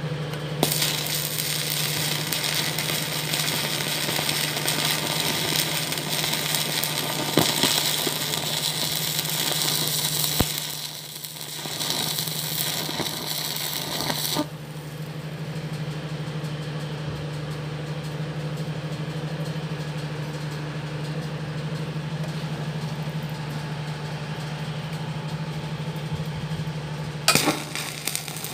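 Stick-welding electrode arc crackling and sizzling over a steady low hum. The sizzle is loud for the first half, with a brief dip part way through, then drops off sharply and runs quieter, with a short loud crackle near the end.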